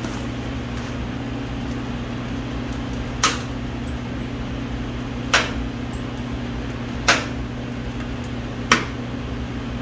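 Side cutters snipping off protruding studs one at a time: four sharp clicks, about one and a half to two seconds apart, over a steady low hum.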